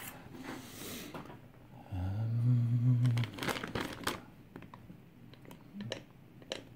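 Small clicks and rustling from a lock being handled. About two seconds in there is a short, low hummed note lasting just over a second.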